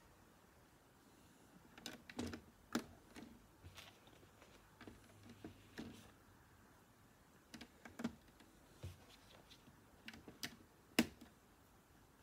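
Plastic LEGO pieces clicking and tapping as they are handled and pressed together. A scatter of sharp clicks at irregular intervals starts about two seconds in, and the loudest click comes near the end.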